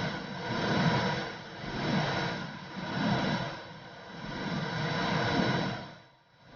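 Womb sound for soothing a baby: a muffled whooshing noise that swells and fades about once a second, like pulsing blood flow heard from inside the womb. It dips briefly near the end.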